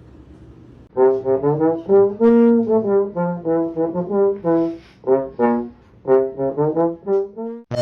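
Background music, a brass melody of many short notes starting about a second in.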